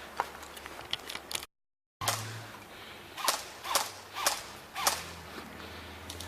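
Airsoft guns firing single shots: a few faint pops, then after a brief dropout of all sound, a run of about five sharp pops roughly half a second apart.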